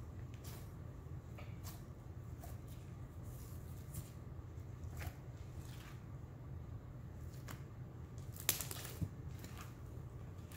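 Blue glitter slime made from Elmer's glue being kneaded and stretched by hand, giving faint, irregular sticky clicks and crackles, with a louder pair of clicks near the end. A steady low hum runs underneath.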